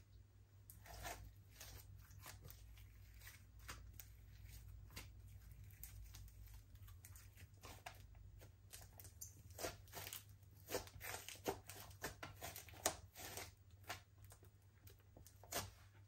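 Slime being squeezed and stretched by hand: a run of soft sticky clicks and crackling pops, sparse at first and denser and louder from about halfway, over a faint low hum.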